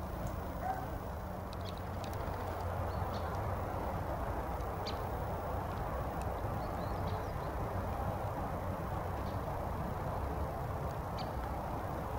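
Steady low background rumble and hiss, with a few faint, brief high chirps or ticks scattered through it.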